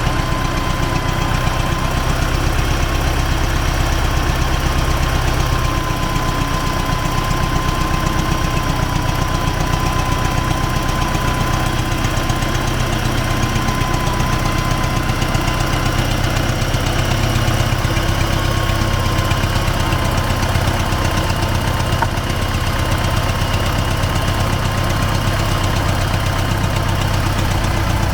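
Air-cooled diesel engine of a T-40AM tractor running steadily as the tractor drives over rough ground, with a steady high whine over the engine note.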